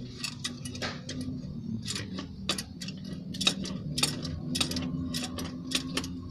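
Sharp metallic clicks and taps, irregular and about three a second, from a hand tool working on the open cylinder head of a truck's V8 diesel engine during injector replacement. A steady low hum runs underneath.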